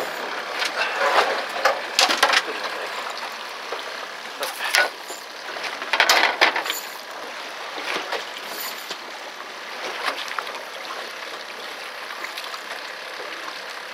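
Steady wind-and-sea hiss around a small fishing boat, broken by a few short, louder noises: a cluster one to two seconds in, one near five seconds and a stronger one around six seconds.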